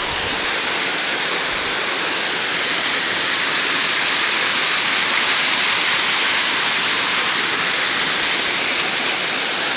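Waterfall rushing close by: a steady, even wash of falling water.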